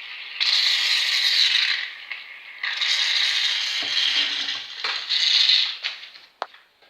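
Aerosol can of shaving cream spraying in three long hissing bursts, the can running low.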